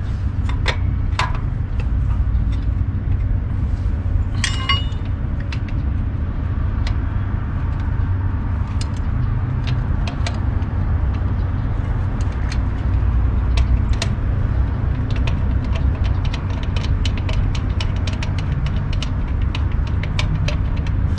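Small metal clicks and clinks, many short sharp ones and thickest in the second half, as a wrench and fittings are handled at a carburetor's fuel inlet, over a steady low rumble.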